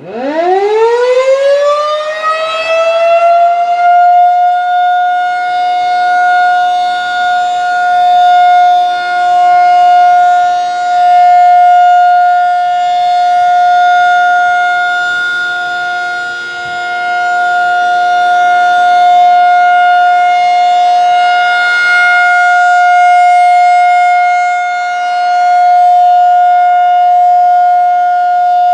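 Federal Signal 2001-SRN rotating tornado siren winding up from silence to a steady single tone within about four seconds, then holding that tone, swelling and fading in loudness as the horn rotates. It is sounding for its monthly test.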